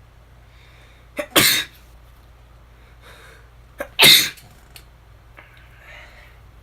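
A man sneezing twice, about two and a half seconds apart, each a quick catch of breath and then a loud burst; the second is the louder. The sneezes are set off by tissue stuffed into his nostril.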